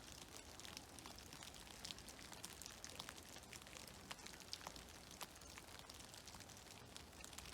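Meltwater dripping from snow-laden trees after a fresh snowfall: faint, irregular drips and pats scattered over a soft, even hiss.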